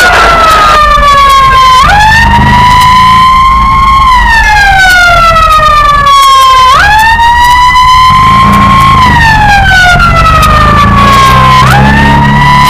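Fire-brigade vehicle's siren wailing loud, two tones that jump up and then glide slowly down, repeating about every five seconds, over a low engine rumble.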